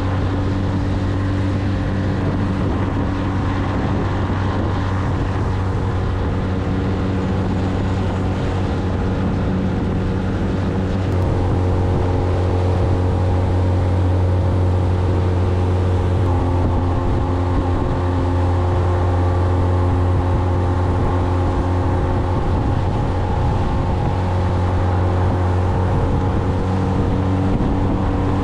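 Engine of a small Longliner fishing boat running steadily while the boat is under way, a constant droning note that shifts slightly about eleven and again about sixteen seconds in.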